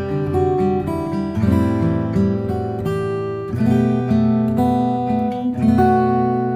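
Background music: acoustic guitar strumming and picking chords, with a last chord left ringing near the end.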